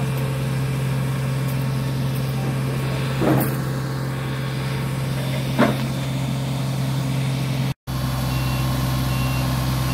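John Deere 35D mini excavator's diesel engine running steadily, with two brief louder noises about a third of the way and halfway through. After a short break near the end, a faint beep repeats about every two-thirds of a second.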